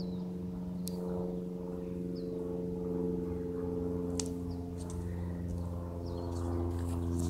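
Cessna light aircraft's piston engine and propeller running steadily overhead, a low buzzing drone that grows a little louder near the end.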